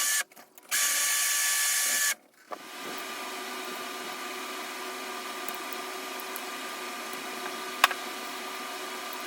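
A small power tool motor runs in two loud bursts of a second or more each, then runs steadily at a lower level with a constant whine. A single sharp click comes near the end.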